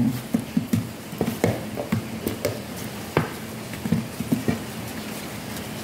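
Butter being rubbed around the inside of a stainless steel baking pan by hand: irregular squeaks and light knocks of the rubbing and of the pan shifting on the table.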